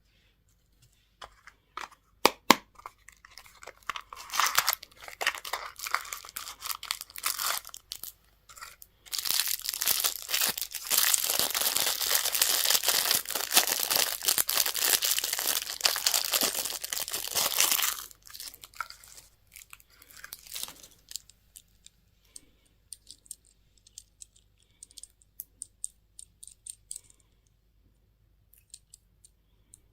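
Candy packaging being torn open and crinkled by hand. A few light clicks come first, then crackling from about four seconds in, and a dense stretch of loud tearing and crinkling from about nine to eighteen seconds. After that come only scattered soft crinkles and ticks.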